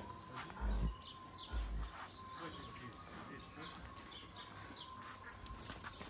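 Birds chirping: short, repeated, falling chirps, with a faint steady high tone underneath. Two brief low thumps come about one and two seconds in.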